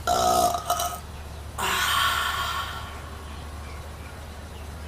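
A woman belching twice, bringing up gas from a fizzy drink. The first belch is short and pitched, lasting about a second. About half a second later comes a longer, rougher one.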